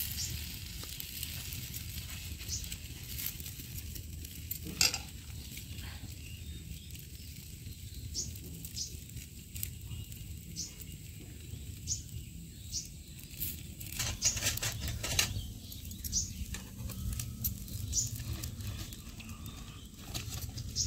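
Chakuli batter with onion sizzling on a hot iron tawa over a wood fire, with scattered sharp clicks and taps, the loudest about five seconds in and a cluster near the middle.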